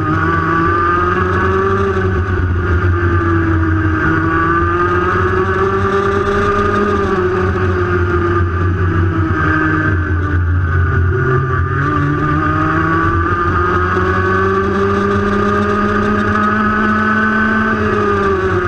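Racing kart engine heard from onboard during a wet-track lap, its pitch rising along the straights and dropping for the corners. It sits lowest around the middle, then climbs steadily for several seconds before falling off near the end.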